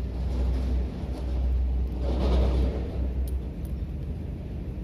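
Steady low rumble that swells briefly about two seconds in, with two faint clicks a little later.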